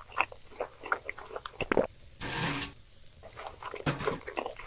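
A string of short, crisp crunching and clicking sounds at an uneven pace, with a brief hiss a little past two seconds in.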